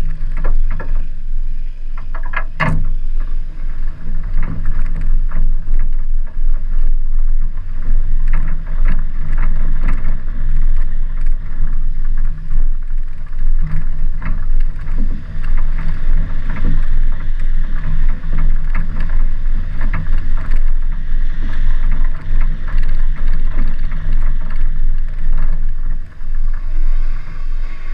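Chevrolet Cavalier being driven hard, its engine running with a steady low drone, over which the body rattles and knocks often, with one sharp bang about three seconds in.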